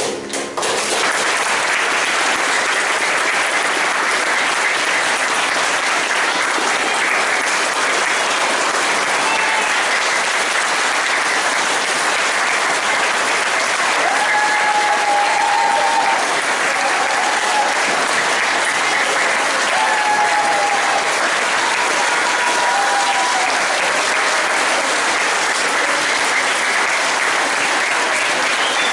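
Sustained applause from an audience of schoolchildren clapping. It starts abruptly about half a second in and holds steady throughout.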